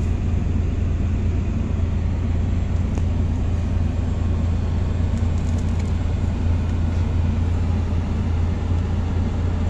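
A vehicle engine running steadily, a constant low rumble heard from inside its cab.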